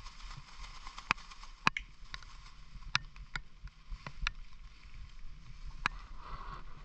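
Water splashing and sloshing, with sharp irregular splashes or clicks every half second to a second over a steady hiss.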